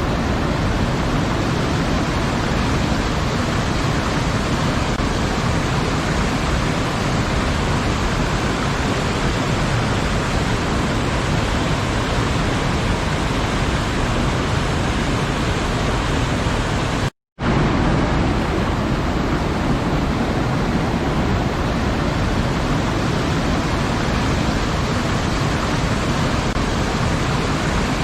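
Waterfall, a steady rushing of falling water, with a sudden total silence of about a quarter second roughly two-thirds of the way through before it resumes.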